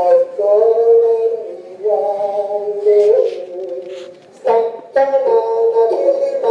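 A voice singing long, drawn-out notes in short phrases, stepping from pitch to pitch, with a brief break about four seconds in.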